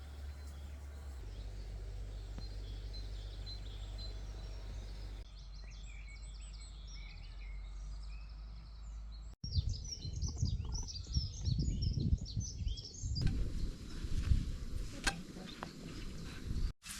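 Several wild birds chirping and singing, heard across a few short outdoor clips spliced together. From about halfway through, a loud low rumble of wind on the microphone sits under the birdsong.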